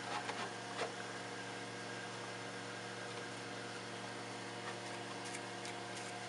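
Steady electrical hum and fan hiss from the powered 3D printer, with a few faint brief rubs of a wet sponge on the glass bed in the first second and again near the end.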